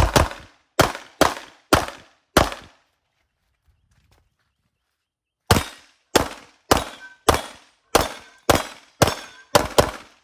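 Glock pistol firing a course of fire: about five shots in quick succession, a pause of about three seconds, then a steadier string of about nine shots roughly half a second apart.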